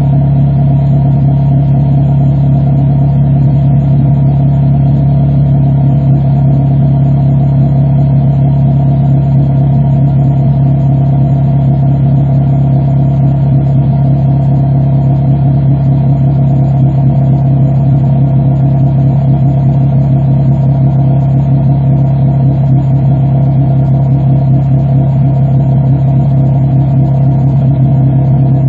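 2006 Honda Civic Si's K20 four-cylinder engine idling steadily through a DNA Motoring full-race catback exhaust, with a constant note that neither rises nor falls.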